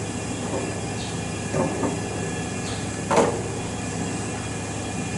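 Pneumatic flow control valves being set in place on a slotted aluminium training panel: a few knocks and clatters, about one and a half seconds in and again just after three seconds, over a steady hum.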